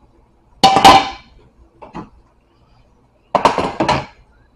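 A utensil clanking against cookware and a plate while food is dished up: a loud ringing clang about half a second in, a small knock near two seconds, and a quick run of knocks a little after three seconds.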